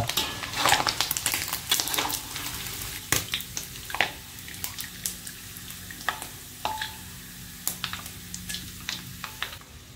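Hot oil in a wok sizzling as fried anchovies are scooped out with a wire spider strainer and a metal ladle. Metal clinks against the wok come thick in the first two or three seconds, then only now and then.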